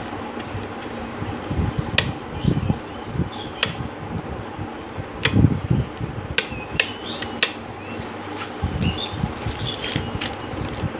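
Several sharp clicks a second or so apart as the red rotary speed knob of a mixer grinder's motor base is turned by hand. Low handling bumps sit over a steady background hum.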